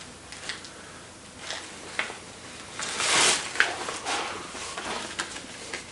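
Plastic snack pouch crinkling and rustling as it is handled, in a few short crackly bursts with small clicks, the loudest about three seconds in.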